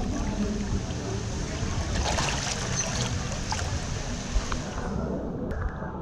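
Swimming-pool water sloshing and splashing right against the action camera's microphone as it is carried along at the surface, a steady rushing hiss that eases off near the end.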